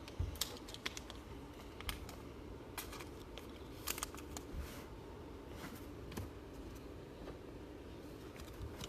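Trading cards being handled and flipped through: scattered light clicks, taps and short rustles.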